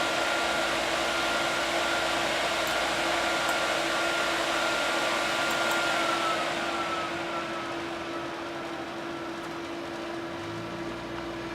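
Cooling fans of three EVGA GTX 970 SC graphics cards running at high speed with a steady rush and a whine, then spinning down about six seconds in: the whine slides down in pitch and the rush gets quieter, leaving a steady lower hum.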